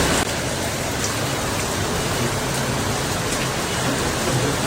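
Heavy rain falling steadily, a dense even hiss, dipping slightly in level a moment in.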